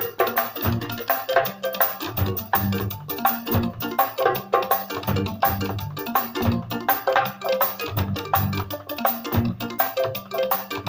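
Live band drumming: a drum kit together with a goatskin sabar drum struck with a thin stick and the bare hand, playing a fast, busy rhythm of sharp strokes over low pitched notes.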